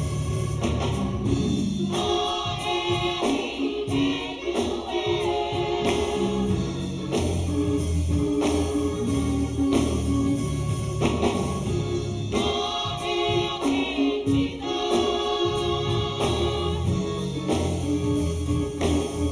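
Gospel singing by a group of voices in close harmony over band accompaniment with sustained bass notes.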